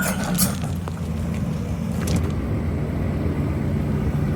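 Large engine running steadily with a low, even drone, and a few short knocks right at the start.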